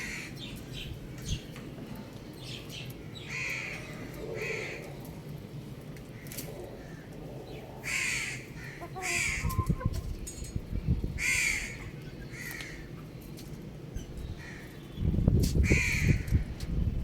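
Short bird calls, mostly in pairs about a second apart, repeated every few seconds, over a low rumbling noise that grows loud near the end.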